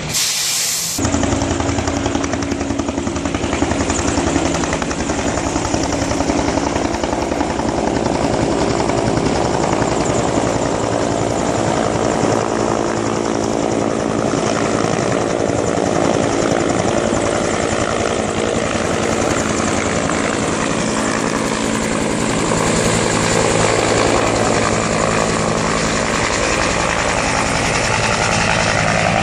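Helicopter flying close by, its rotor beating in a rapid, steady chop over the engine's drone, growing slightly louder in the second half. A brief loud hiss sounds right at the start.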